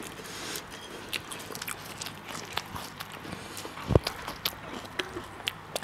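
A person chewing a crunchy snack with a clip-on microphone held right at the mouth, making irregular sharp crunches. A single low thump comes about four seconds in.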